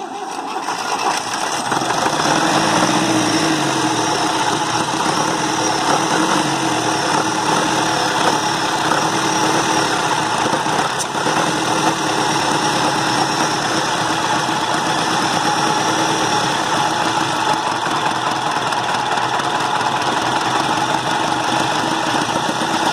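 Massey Ferguson MF 85 tractor's diesel engine running after five years idle, building up over the first couple of seconds with its speed wavering at first, then running steadily. It runs on a fuel system that the owner says has taken in air, and it does not keep running.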